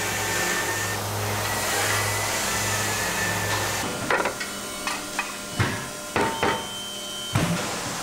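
Steady factory machine hum, then, from about four seconds in, a run of sharp metallic clanks and knocks as thin aluminum pans are pulled from a stack and handled against one another.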